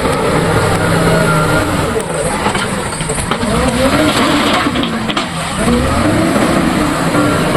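JCB 3DX backhoe loader's diesel engine running hard, its pitch rising and falling as it works the load.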